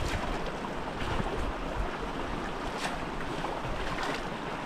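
Shallow mountain stream running over stones: a steady rush of water, with a few light splashes.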